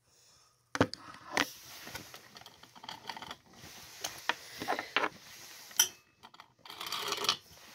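Handling noise from a phone being held and moved about: irregular knocks, clicks and scraping rub against the microphone, starting after a near-silent first moment.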